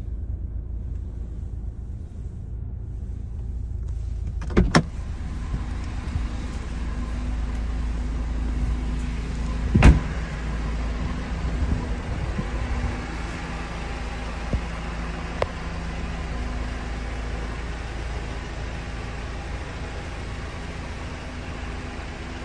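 2022 Mercedes-AMG GLA45's turbocharged four-cylinder engine idling steadily. The car door clicks open about five seconds in and shuts with a heavy thump about ten seconds in.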